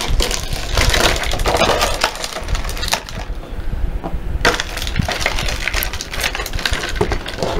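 Clear plastic blister packaging crackling and crinkling as it is pulled apart and handled, with many sharp clicks and a few louder knocks as small plastic toy figures are set down on a table.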